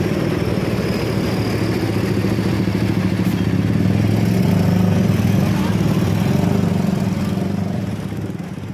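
Large tour bus's engine running as the bus moves past: a low steady drone that swells to its loudest about halfway through, then fades toward the end.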